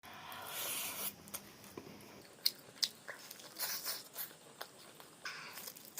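Close-up eating sounds: biting and chewing, with a few sharp clicks.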